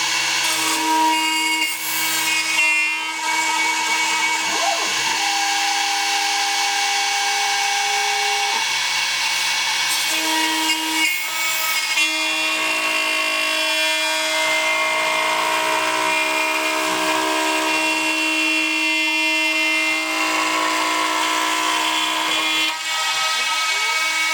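Small DIY CNC router milling 2 mm aluminium plate: a steady spindle whine with cutting noise, under stepper-motor tones that jump to a new pitch every few seconds as the axes change feed direction and speed.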